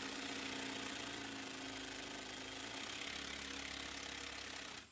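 A handheld power tool's motor runs steadily, spinning out a suspension bolt, and cuts off abruptly near the end.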